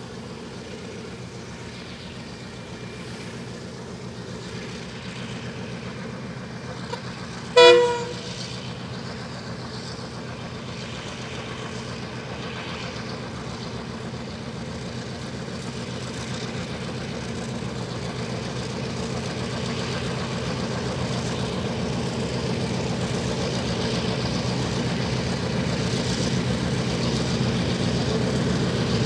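Diesel locomotives (SSR 442-class 442s2 leading GM10) approaching with their engines running and growing steadily louder. The leading locomotive's horn sounds one short blast about eight seconds in, the loudest moment.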